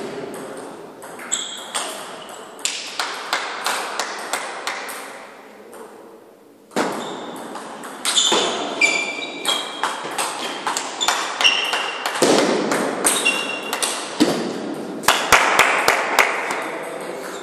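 Table tennis balls clicking off rackets and the table in quick rallies, many hard ticks each with a short ringing ping. A brief lull comes about six seconds in.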